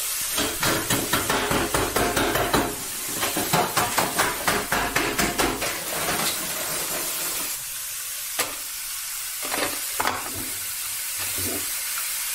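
Fries deep-frying in hot oil: a dense run of sizzling crackles that thins about halfway through to a soft sizzle with a few separate pops.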